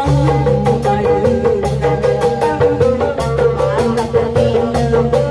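Sundanese kuda renggong ensemble music playing: a melody line over steady drum strokes several times a second.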